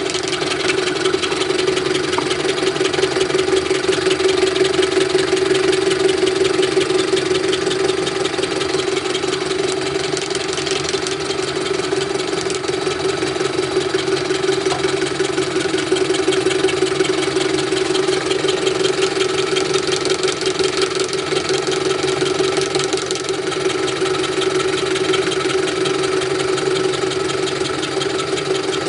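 A metalworking machine running steadily with a constant hum and a fine, rapid rattle that stays even throughout.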